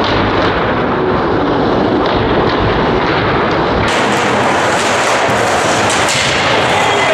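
Steady, loud ice-rink game noise heard from the stands: the sound of play on the ice and in the arena blends into a rumbling haze. The sound turns brighter and less rumbly about four seconds in, and there is one sharp knock about six seconds in.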